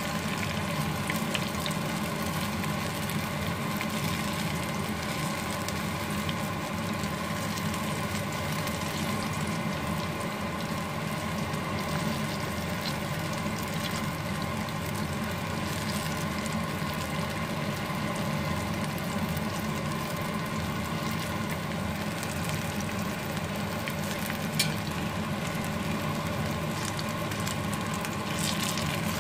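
Breaded banana fritters (pisang goreng) frying in hot oil in a small pan: steady sizzling and bubbling, with a steady hum underneath. A single sharp tap comes near the end.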